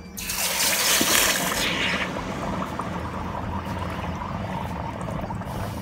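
A hot investment casting flask quenched in a bucket of water: a sudden loud hiss for the first two seconds, then steady bubbling and crackling as the investment plaster boils and breaks apart off the casting.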